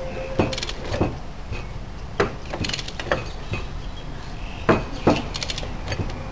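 About six sharp metal knocks and clanks, with three short runs of rapid clicking, as the drive-shaft end nut of an E-type Jaguar rear hub is tightened with a torque wrench against a bar jammed in the yoke, drawing the inner bearing race up to the spacer.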